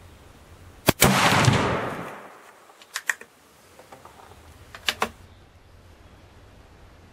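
A single shot from an 1854/67 Wänzl breech-loading rifle in 14x33R: a sharp crack about a second in, then a loud report that rolls away over about a second. Two pairs of sharp clicks follow, near the middle and a couple of seconds later.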